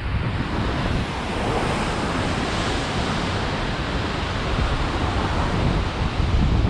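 Heavy ocean surf breaking and washing white against the foot of a rocky sea cliff, a steady rush, with wind buffeting the microphone.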